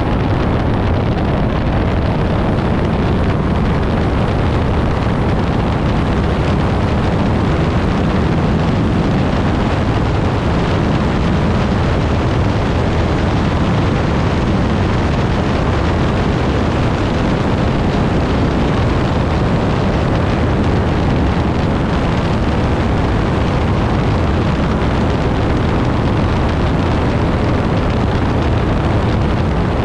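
Piper Pawnee tow plane's piston engine and propeller running steadily in flight, with the rush of wind over the airframe.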